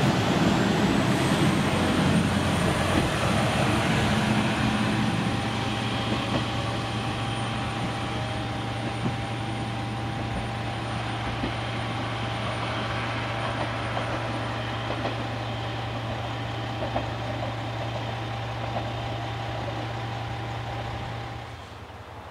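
Chizu Express HOT3500-series diesel railcar pulling away, its engine and running gear loud at first and fading over the first several seconds as it draws off, then a steady low hum. The sound drops suddenly near the end.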